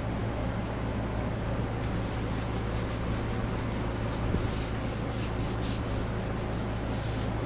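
Light rubbing strokes as WD-40 is worked onto a painted metal vise, a run of them from about halfway through, over a steady low hum.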